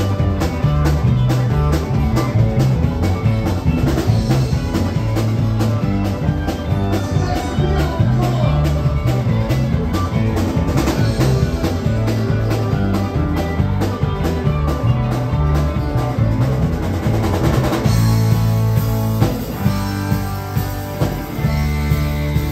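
Live rock band playing an instrumental passage: electric and acoustic guitars over bass and a drum kit keeping a steady beat. The steady drumbeat falls away about eighteen seconds in, leaving held bass and guitar notes.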